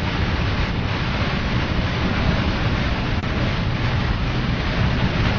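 Steady noise inside a truck cab driving in heavy rain: low engine and road rumble under a constant hiss of rain and spray on the windscreen.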